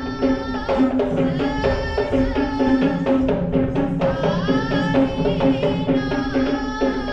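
Traditional Sri Lankan drumming accompanying a Kandyan dance: a steady, busy hand-drum rhythm with a melody of sliding notes over it.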